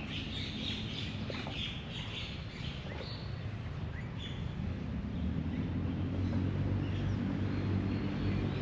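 Small birds chirping repeatedly outdoors, with a low, steady engine hum that grows louder through the second half.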